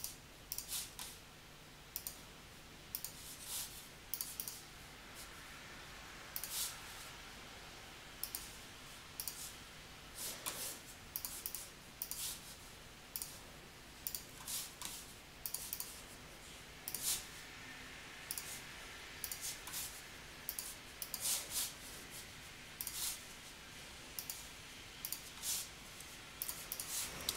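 Irregular computer mouse clicks, single and in quick pairs, coming about every second over a faint steady hum.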